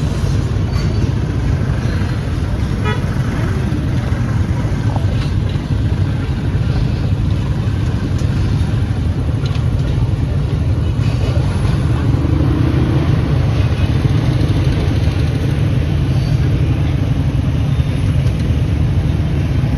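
Steady, loud low rumble of a train passing a railway level crossing, with a vehicle horn tooting.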